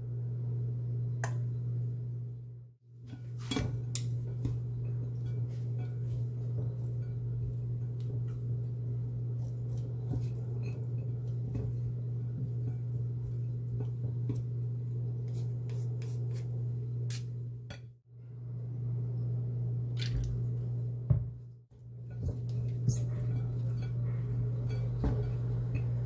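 Scattered light clicks and taps of a utensil and a gloved hand against a ceramic plate while shredded dried squid is tossed with mayonnaise, over a steady low electrical hum. The hum and the clicks cut out briefly a few times.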